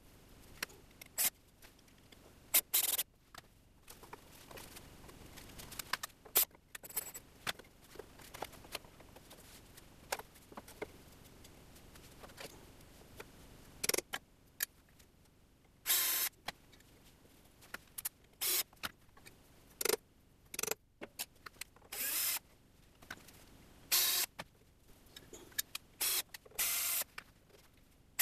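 Cordless drill running in short bursts, boring pilot holes and driving screws into an MDF board, with clicks and knocks from handling the board and tools in between.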